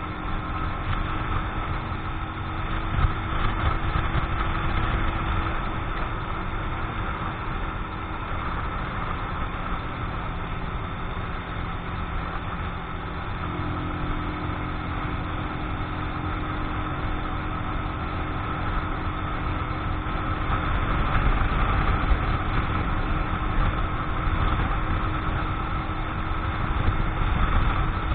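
Keeway X-Light 125 motorcycle engine running at a steady cruise on the road, in its break-in period, with wind rushing over the microphone. The engine note shifts slightly about halfway through.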